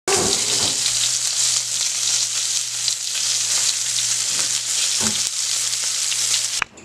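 Duck breasts sizzling in a frying pan: a steady hiss with occasional small pops, over a faint low hum. It cuts off suddenly near the end.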